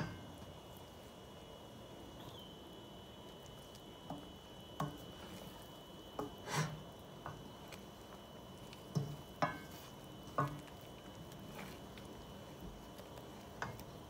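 Wooden spoon stirring a thick sauce in a stainless steel pan, knocking and scraping against the pan now and then in irregular light clacks, over a faint steady hiss with a thin high tone.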